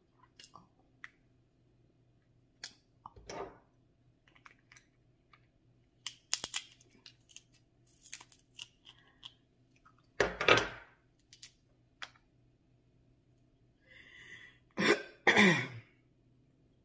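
Close-miked eating of a seafood boil: chewing, with scattered sharp clicks and cracks from crab-leg shells being broken. There are a few louder mouth sounds, one a little past the middle and two close together near the end.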